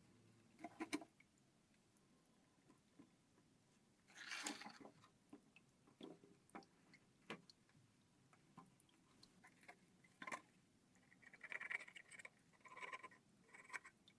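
Faint, scattered clicks and short scraping rustles of objects being handled, with a longer rustle about four seconds in and a cluster near the end.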